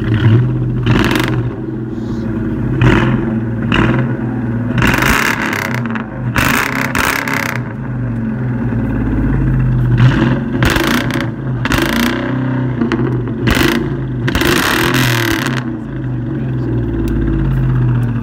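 Ford Mustang GT's 4.6-litre V8 idling through its dual exhaust while the throttle is blipped about a dozen times, each rev a short, loud bark, a few held for about a second. The exhaust is loud.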